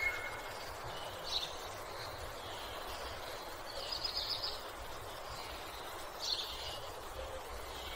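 Nature ambience: a few short bird calls, about three in all, over a steady rushing background noise.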